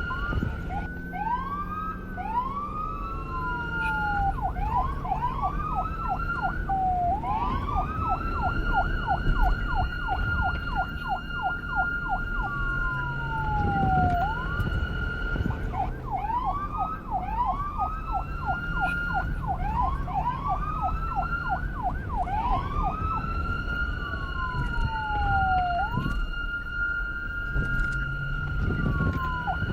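Police car siren cycling through its tones: a rising wail that levels off into a steady tone, stretches of fast yelping sweeps about four or five a second, and slow falling glides, over a low rumble.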